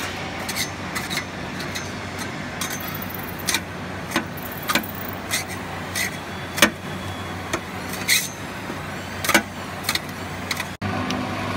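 Electric drum roaster for wheat bran running with a steady hum while roasted bran is unloaded, a metal scraper knocking and scraping irregularly against the stainless-steel discharge tray. The sound cuts out for an instant near the end, and the hum comes back louder.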